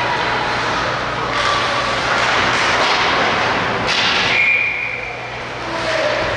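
Ice hockey game on the rink: skate blades scraping the ice and sticks and puck clacking, a handful of sudden sharp strokes over a steady rink noise. A short high steady tone sounds just past the middle.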